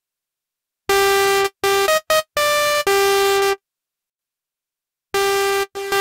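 miniKORG 700S software synthesizer playing its 'Bouncy Ball Poly' preset: a short phrase of about six bright notes that start and stop abruptly, mostly on one pitch with a few higher ones, beginning about a second in. After a pause of about a second and a half, the phrase starts again near the end.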